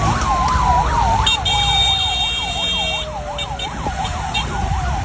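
A vehicle siren yelping in a fast up-and-down warble, about three sweeps a second, over a low vehicle rumble. A second tone slides slowly down in pitch, and a brief high steady tone sounds from about a second in to about three seconds.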